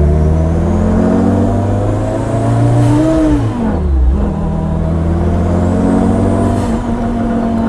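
Kimera EVO37's 2.1-litre four-cylinder engine under acceleration. The note climbs, falls sharply about three seconds in, then climbs again.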